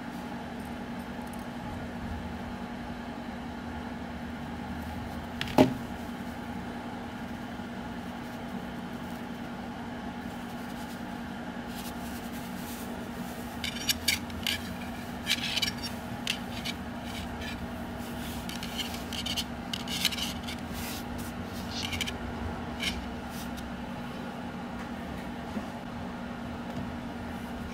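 Small clicks and scrapes of the thin wire arms of a homemade umbrella rig being handled and fitted into its metal head, over a steady low hum. One sharp click about five and a half seconds in is the loudest; the smaller clicks come in a loose cluster in the middle stretch.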